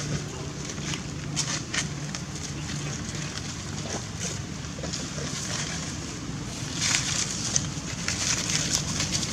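Wind buffeting the microphone, with a few short crackles and scrapes of dry leaves as a baby long-tailed macaque scrambles on the ground, more of them near the end.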